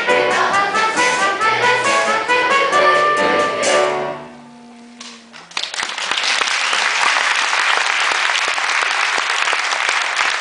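Children's choir singing with instrumental accompaniment, the song ending about four seconds in with a short held low note. Then audience applause.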